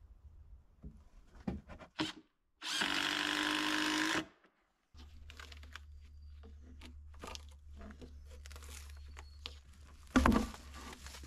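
A power drill runs in one steady burst of about a second and a half. Scattered knocks and clicks of wood being handled come around it, with one sharp, loud knock near the end.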